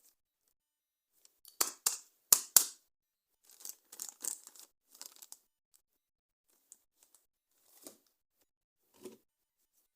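Toy packaging being torn open: four sharp rips, then a run of crinkling and rustling, then a few faint ticks and a dull knock near the end.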